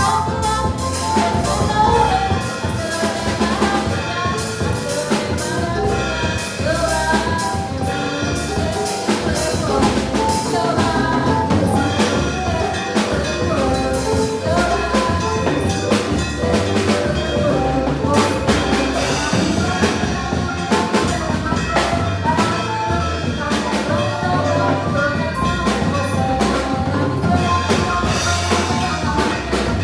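Drum kit playing a Latin songo/salsa groove with busy rimshots and bass drum, over full band music with pitched instruments.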